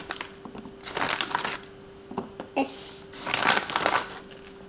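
Clear plastic food bag crinkling as breaded nuggets are pulled out of it by hand, in two main bursts with small taps in between, over a faint steady hum.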